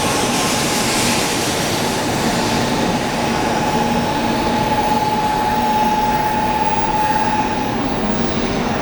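N700-series Shinkansen train running out of the station, a steady rushing noise with a thin, level whine that swells midway and fades near the end.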